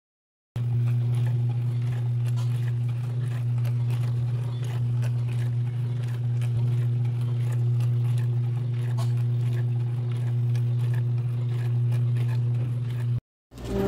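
IAGREEA countertop dishwasher running, with its pump motor giving a steady low hum over a faint hiss. It starts about half a second in and cuts off abruptly near the end.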